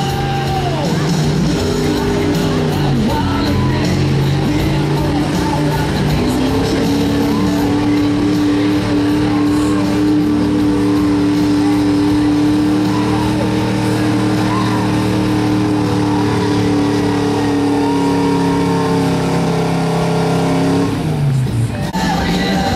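Chevy pickup's gas engine at full throttle, pulling a weight-transfer sled in a stock-class truck pull. The revs settle about six seconds in and hold high and steady for roughly fifteen seconds, then fall away near the end as the pull ends.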